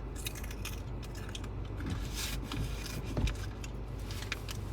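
Inside a moving car: a steady low rumble of the car on the road, with light irregular clicking and rattling and one louder knock about three seconds in.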